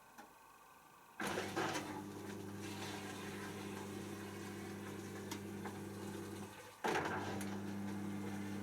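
Hoover DYN7144XD1 washing machine kicking in about a second in, with a steady hum and rushing water. It cuts out for a moment near the end and starts again.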